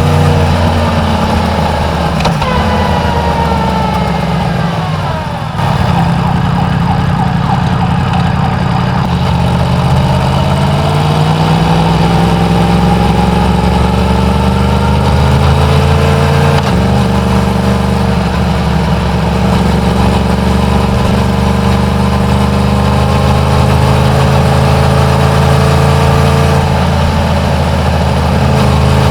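Yamaha MT-10's crossplane inline-four on its stock exhaust, heard from the bike while riding in traffic. The engine note falls as the bike slows over the first few seconds, dips briefly, then climbs gradually at light throttle, with a shift in pitch around the middle and another brief dip and rise near the end.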